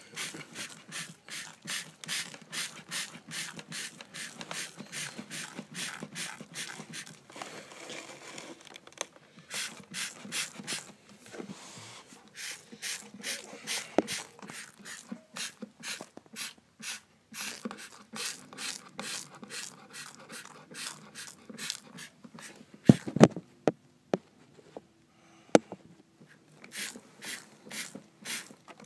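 A hand spray bottle spraying in quick short hissing bursts, about three a second, wetting a toy car in a model car wash. A few loud knocks come about 23 seconds in.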